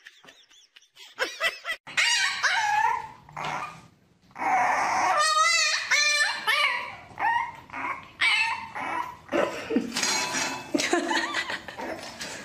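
A puppy yipping, whining and barking in a string of high calls that bend up and down, one of them quavering rapidly. The first two seconds are quiet.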